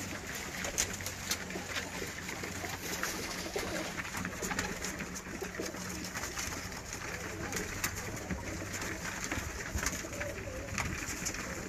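A flock of Budapest highflyer pigeons cooing as they crowd around a feeder, with wings flapping and many short sharp clicks throughout.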